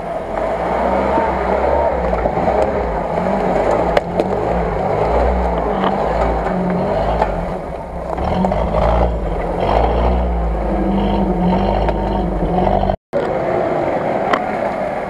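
UAZ-469 off-roader's engine labouring under load through mud, its note rising and falling as the throttle is worked. About thirteen seconds in, the sound breaks off for an instant.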